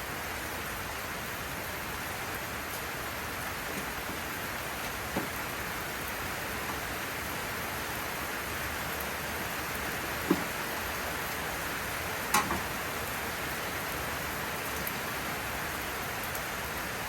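Heavy rain pouring down steadily, with a few sharp clicks about five, ten and twelve seconds in.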